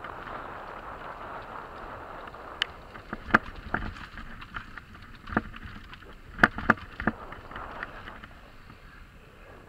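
Mountain bike ridden fast down a dirt trail: a steady rush of tyre and wind noise, then sharp knocks and rattles from the bike as it drops over bumps, starting about three seconds in. It quietens to a smoother roll near the end as it reaches paved road.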